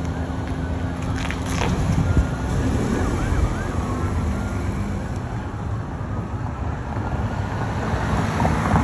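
Steady wind rumble on a phone microphone, with a faint distant emergency siren wailing.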